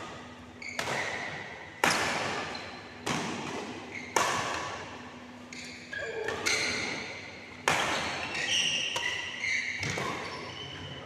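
Badminton rackets smacking the shuttlecock back and forth in a fast rally, a sharp crack every one to two seconds that echoes around the hall, with short squeaks of shoes on the court mat between the hits.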